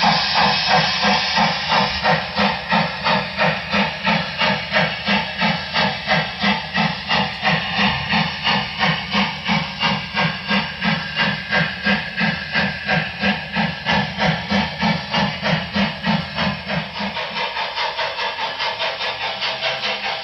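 Sound system of an HO-scale Broadway Limited Paragon 4 Southern Pacific GS-4 model steam locomotive playing steady steam exhaust chuffs, about two and a half a second, with a hiss over them. Near the end the chuffs turn quicker and lighter.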